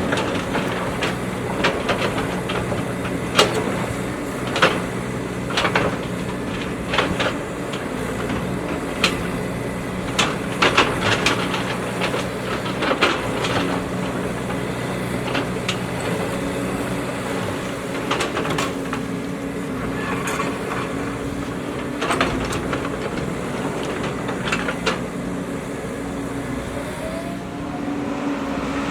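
JCB 3DX backhoe loader's diesel engine running steadily as the machine works, with irregular sharp metallic clanks and knocks from the digging gear.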